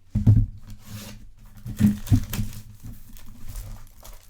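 Wrapping being torn and crinkled as a trading-card hobby box is opened, with a few dull knocks of the box being handled, strongest near the start and about two seconds in.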